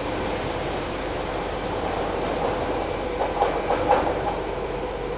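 NS SGMm Sprinter electric multiple unit pulling away through the underground station into the tunnel, with steady running noise and a short run of wheel clicks and knocks about three to four seconds in.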